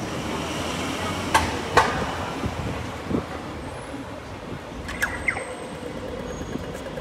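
Steady city street traffic noise from passing cars and a bus, with two sharp clicks about a second and a half in and two more around five seconds.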